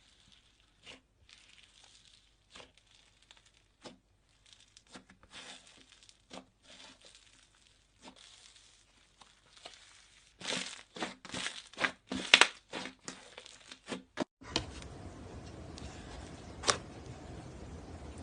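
Slime being stretched, pressed and squeezed by hand, making soft sticky pops and crackles. It grows busier and louder about two-thirds of the way through. Near the end a steady hiss comes in under a few scattered clicks.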